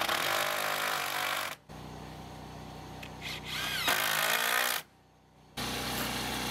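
Cordless drill driving screws into a wooden board at the base of a chicken coop. It runs in two stretches: one at the start and a shorter one about four seconds in.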